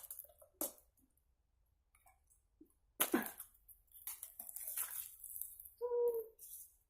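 A product pack being handled and opened, with a few light clicks and then crinkling and rustling of the packaging starting about three seconds in. A brief pitched sound follows near the end.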